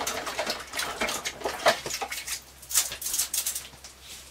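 Hands being dunked and rinsed in water at a kitchen sink: short, irregular splashes that die away after about three seconds.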